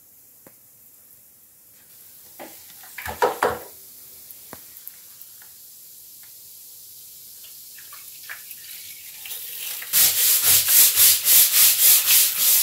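A long-handled tool scrubbing a rough, vinegar-soaked plaster wall in loud rhythmic strokes, about four a second, starting about ten seconds in. Before that there is a faint hiss and a few knocks.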